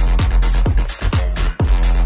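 Electronic dance music with a steady four-on-the-floor kick drum, about two beats a second, over sustained bass.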